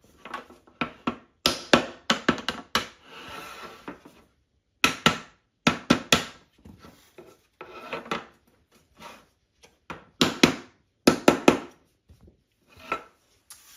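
3D-printed plastic frame pieces being banged down onto their joining clips to seat them: several groups of sharp knocks, with softer scraping of plastic on plastic between them.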